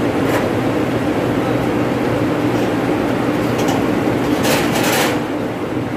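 Loud, steady drone of running machinery with a low hum, and a short harsh rasp of noise about four and a half seconds in.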